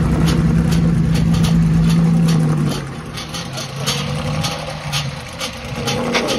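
Vintage 1950s-era racing car engine held at a steady raised note, then dropping back to a lower idle about three seconds in, and rising again near the end.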